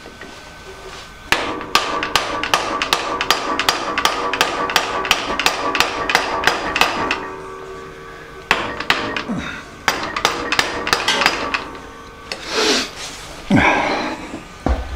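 Rapid hammer blows, about three a second, on a wooden drift held against the worm shaft of a horizontal metal-cutting bandsaw's gearbox, driving the shaft out of its pressed-in bearings; each blow leaves a short ring. A run of about six seconds stops, and after a pause of about a second and a half a shorter run follows.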